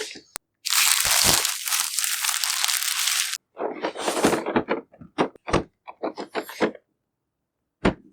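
Figure packaging being torn open and handled: a loud tearing rush lasting about three seconds, then a string of short crinkles and cracks, and a knock near the end.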